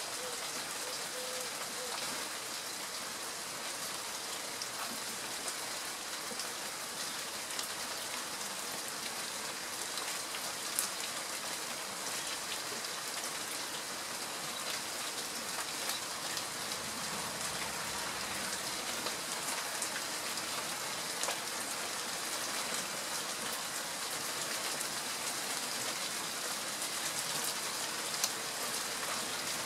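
Steady rain falling, an even hiss with occasional sharp ticks of single drops.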